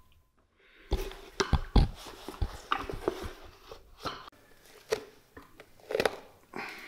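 A run of sharp, irregular knocks, clicks and crunches as a soaked old leather boot is handled on a wooden bench and its heel is gripped and pried with steel pincers. The brittle sole leather crunches under the tool.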